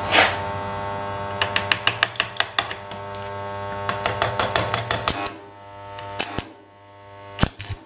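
Stick (electrode) arc welder tack-welding a steel moped exhaust: a steady electric hum with irregular crackling and sharp pops from the arc for about five seconds, then it stops. A few sharp taps follow near the end.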